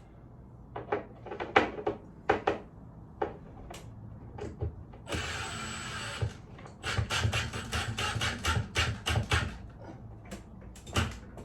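Clicks and knocks of tools and fixings as a metal heater bracket is screwed to the wall, with a rasping noise lasting about a second near the middle, followed by a run of quick clicks.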